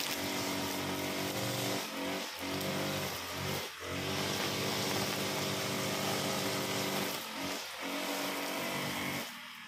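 Honda GX35 four-stroke brush cutter engine running at high revs while cutting grass, its speed dipping briefly a few times. It drops back just before the end.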